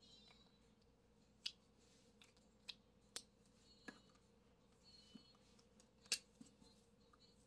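Felt-tip markers being handled: a handful of sharp, separate clicks from caps snapping and markers knocking together, the loudest about six seconds in.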